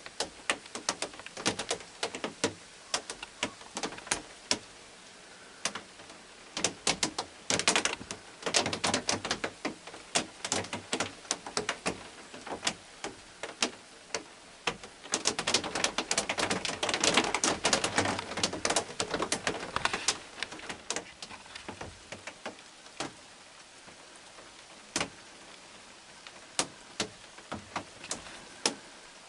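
Rain falling, with many irregular raindrops tapping sharply close by over a soft steady hiss; the drips come thickest in two spells through the middle.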